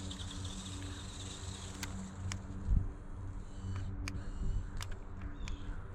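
Small electric motor and drivetrain of a 1:12-scale RC monster truck running with a low rumble, with several sharp clicks and one louder thump near the middle.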